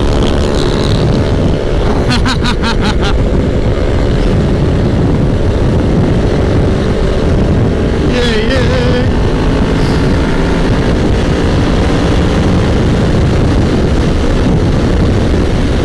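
Sport motorcycle engine running steadily under way, heard from the rider's camera with wind rushing over the microphone.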